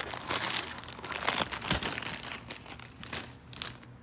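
Plastic packaging bag crinkling and rustling against a cardboard box as a small USB charger is unpacked, a run of irregular crackles that thins out near the end.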